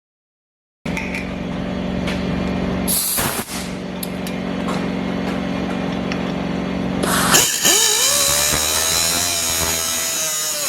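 Metalworking power tools on a truck's steel dump-body hinge mount: a steady buzzing tool with scattered clicks, then about seven and a half seconds in a tool motor spins up, rising in pitch, and runs on steadily with a bright high hiss.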